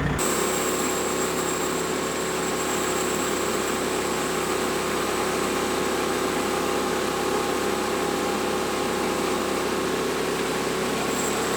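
An engine running steadily at an even, unchanging pitch, with a thin high whine over it.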